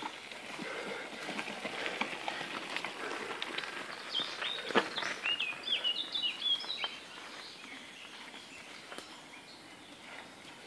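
Mountain bikes rolling over a stony dirt trail, with scattered clicks and rattles. Just before the middle comes one sharp knock, the loudest sound, followed by a bird singing a quick series of short, high falling notes.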